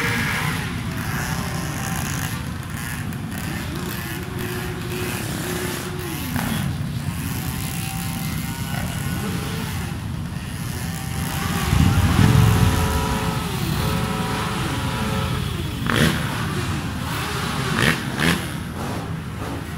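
A pack of motorcycles riding slowly together, engines running with revs rising and falling, heard from the saddle of one bike in the group. One louder rev comes about twelve seconds in, and a few short sharp sounds come near the end.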